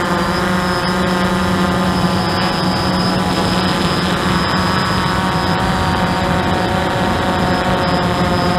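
Hubsan quadcopter's motors and propellers running at a steady pitch in flight, a continuous whirring hum with a strong low tone and many higher overtones, picked up close by the drone's own onboard camera.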